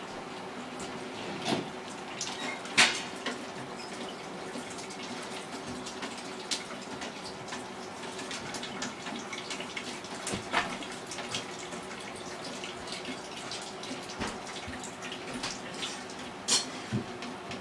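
Scattered clicks and knocks, a few much louder than the rest, from work at a leak-damaged, wet ceiling, over a steady low hum.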